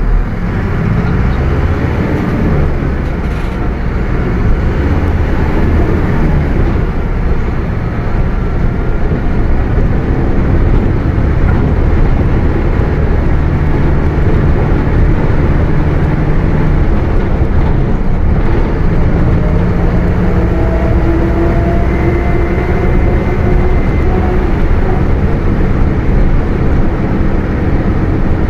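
Mercedes-Benz OF 1721 BlueTec 5 bus under way: steady diesel rumble with the differential droning, a whining tone that climbs a little in pitch about two-thirds of the way through.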